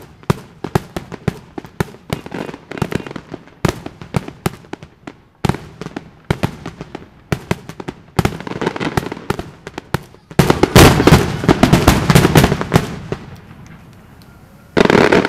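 Fireworks display: aerial shells bursting in a quick, irregular series of sharp bangs. About ten seconds in they thicken into a dense, loud barrage lasting a few seconds, then there is a short lull and a fresh loud burst near the end.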